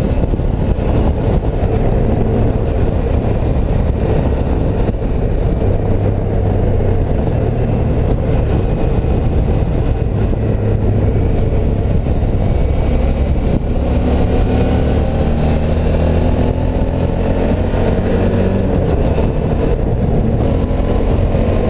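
Suzuki V-Strom V-twin motorcycle engine running under way. Its pitch rises steadily through the second half as the bike accelerates.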